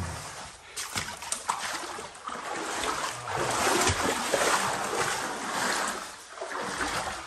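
Water splashing as a person wades through a shallow pool in a slot canyon, with irregular scuffs and knocks, louder in the middle stretch.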